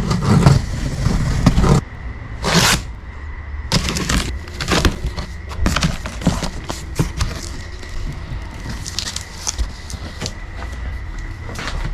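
A large cardboard parcel being opened by hand: a string of scrapes, crackles and knocks of cardboard and packing being handled, with a short hissing rip about two and a half seconds in.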